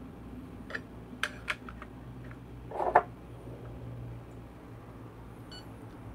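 A coffee scale and a ceramic espresso cup being set down on the base of a Flair espresso press: several light clicks, then a louder knock about three seconds in.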